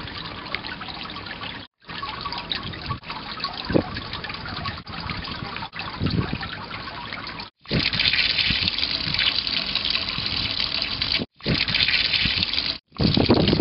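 Water trickling and splashing at a street drain grate, growing into a louder pour of water splashing onto paving about halfway through. The sound stops dead several times where short clips are cut together.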